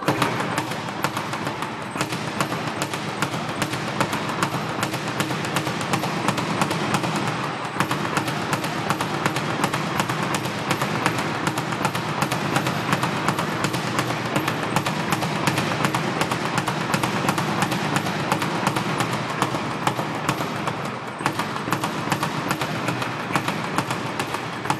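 Speed bag on a Gilmartin platform being punched nonstop: a fast, steady rattle of the leather bag striking the wooden rebound board, with a brief let-up twice.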